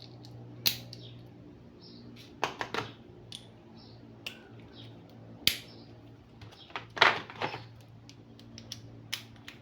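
Scattered metal clicks and clinks as small chrome-vanadium socket-set pieces are fitted together and handled, in a few short clusters over a faint steady low hum.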